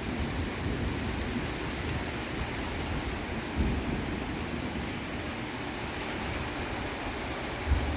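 Heavy rain falling steadily, a dense even hiss, with two brief low thumps, one about midway and one near the end.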